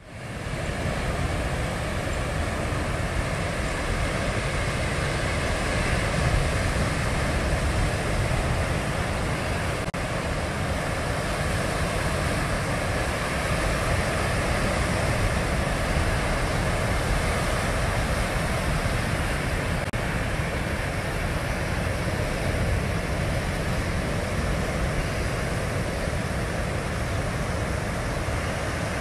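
Ocean surf breaking and washing over a rocky shoreline: a steady, continuous rush of water with a deep low rumble.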